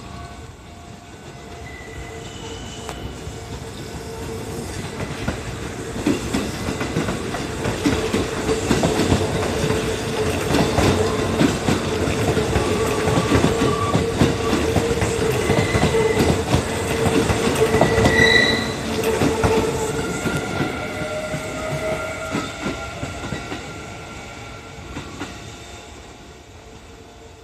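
Kintetsu electric train passing at speed, its wheels clattering over the rail joints. The sound builds over several seconds to a peak about two-thirds of the way through, then fades away.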